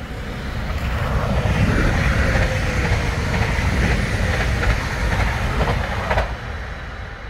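NS Sprinter electric train passing close by: a rushing of wheels on rail that swells and then fades, with a slowly falling whine. Several sharp clacks of the wheels over rail joints come near the end.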